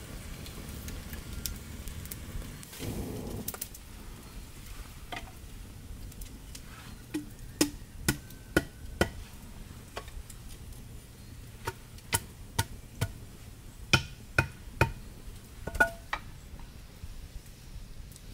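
A steady hiss for the first few seconds, then a series of about a dozen sharp knocks or taps at irregular intervals, some with a short ringing tone.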